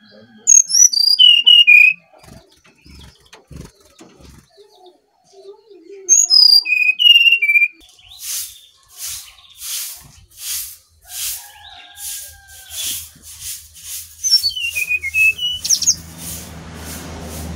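Brown-chested jungle flycatcher singing: three short phrases of clear whistled notes, each sliding down in pitch. Between the second and third phrases comes a run of soft, evenly spaced rustles, about one and a half a second.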